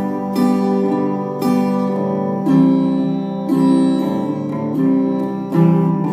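Acoustic guitar playing the song's instrumental intro: sustained chords with a fresh strum about once a second, and no voice.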